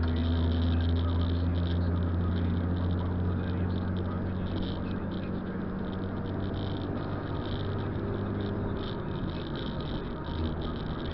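Steady low engine drone and road noise inside a moving car, with tyres running on a wet road.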